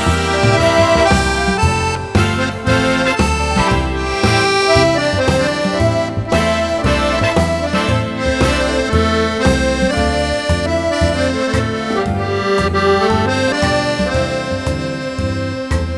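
Accordion playing a sustained melody over a steady, pulsing bass-and-chord accompaniment.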